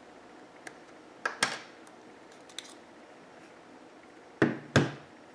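Small clicks and taps of an ejector pin and a smartphone's SIM tray being pushed out and handled, with two louder sharp knocks about half a second apart near the end.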